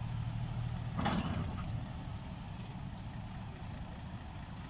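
Low, steady rumble of truck engines running at a distance, with one short, louder burst about a second in.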